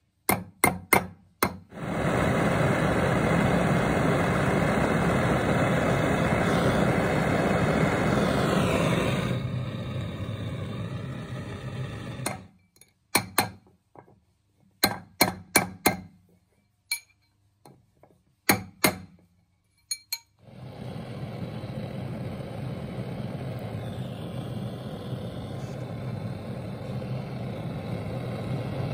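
A steel hammer striking a fork-made ring on a steel ring mandrel in quick groups of sharp metallic taps, at the start and again in the middle. A loud steady rushing noise comes in between, and from about two-thirds of the way in a gas torch flame hisses steadily.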